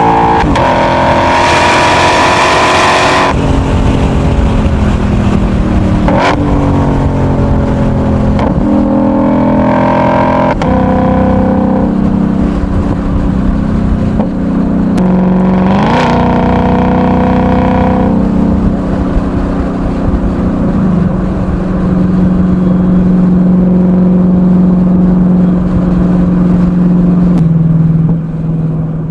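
Ford Mustang GTD's supercharged 5.2-litre V8 running loud, with its pitch rising and falling through several quick revs in the first half. It then holds a steady lower note for the last third and fades away at the very end.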